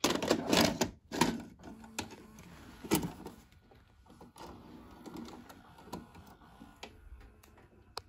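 Plastic clatter of a VHS cassette being handled and pushed into a Philips VR960B VCR, then the deck's mechanism loading the tape with quieter mechanical running and scattered clicks.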